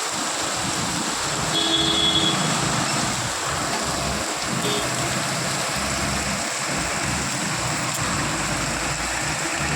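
Heavy rain falling steadily, a constant hiss. A short pitched tone sounds about two seconds in, and a low rumble comes in past the middle.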